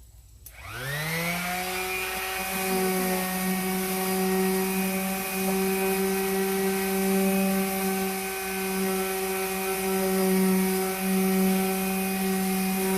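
Electric palm sander switched on: its motor spins up quickly within the first second, then runs steadily with a constant hum.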